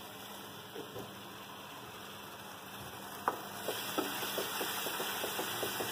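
Onion-tomato masala sizzling in a kadai, a low steady hiss at first. About three seconds in, a wooden spatula starts stirring and scraping the pan with a sharp knock and then a run of short clicks, and the sizzle grows louder.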